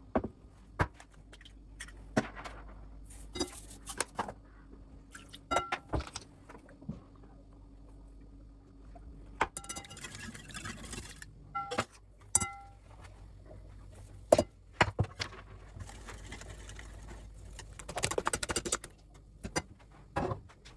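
Household handling sounds: a string of light clicks, knocks and clatter as objects are picked up and set down, a few with a short ringing clink near the middle, and soft rustling, over a faint low hum.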